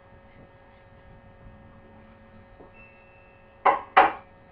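Low steady electrical hum. Near the end come two loud, short sounds about a third of a second apart.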